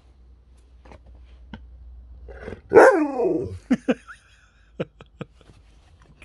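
Husky vocalising: one loud drawn-out call sliding down in pitch a little under three seconds in, then five short calls in two quick groups.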